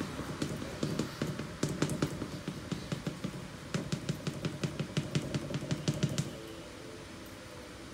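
A pastel stick tapping and scratching against a wooden board in quick, irregular strokes, which stop about six seconds in.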